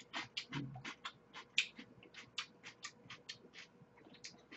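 Chewing close to the microphone: a quick, irregular run of small mouth clicks, several a second.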